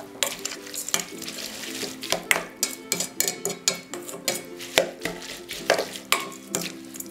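Spatula and spoon scraping and clinking irregularly against a stainless steel mixing bowl as sliced beef tripe is tossed with its seasonings, over soft background music.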